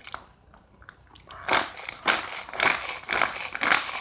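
Belscoop pull-cord manual chopper chopping peeled garlic and shallots in its plastic bowl. Repeated quick pulls on the cord, about two a second, start about a second in, each spinning the blades through the cloves.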